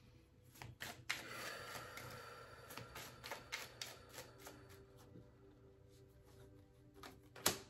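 A deck of tarot cards being shuffled by hand: a run of soft card clicks and slaps, with a denser rustling stretch for a couple of seconds near the start and one sharper click near the end.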